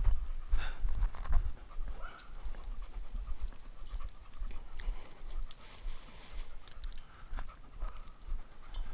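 Guide dog panting while walking, with footsteps ticking and wind rumbling on the microphone.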